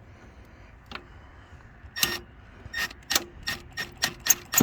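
Sharp hand-worked clicks from parts being fitted during an LED headlight install: one click about a second in, then a run of irregular clicks, about three a second, from about two seconds in.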